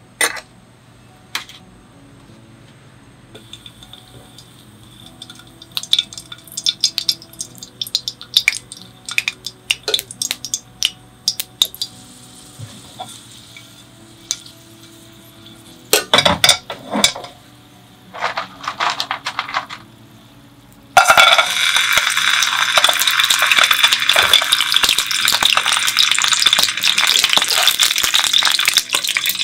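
Garlic and chili crackling quietly in olive oil in an aluminium frying pan, with scattered small pops and ticks. About halfway through, clams and mussels clatter into the metal pan. About two-thirds in, a loud steady sizzle starts abruptly as the shellfish hit the hot oil.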